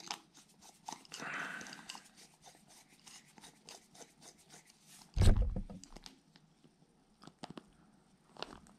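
Small clicks and scrapes of a 2 mm hex screwdriver turning a small screw into an RC crawler wheel's hub weight, with one loud dull thump about five seconds in.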